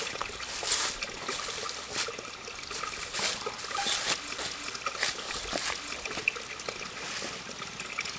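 Spring water trickling and splashing, an irregular running patter with small splashes.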